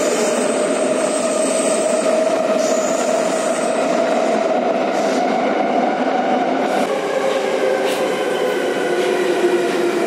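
Warsaw metro train running through a tunnel, heard from inside the carriage: a steady rumble of wheels on rail with the whine of the traction motors. The whine falls in pitch over the last few seconds as the train slows into a station.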